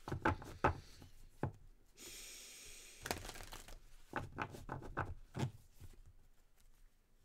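A deck of tarot cards being shuffled by hand: a run of short card snaps and rustles, with a longer steady rustle about two seconds in.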